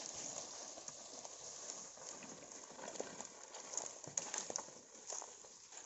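Dry rubber-tree branches dragged across dry leaf litter, with footsteps crunching the leaves: a faint rustling with scattered irregular crackles and snaps.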